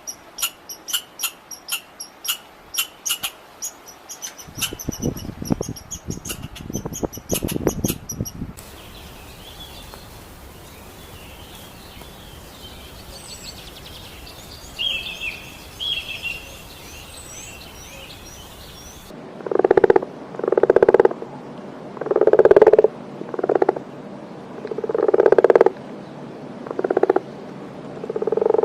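A run of separate animal-call recordings: first rapid, evenly repeated high chirping calls with a low rumble under them, then faint bird-like chirps over a steady hiss, then a series of loud, drawn-out calls repeated roughly once a second.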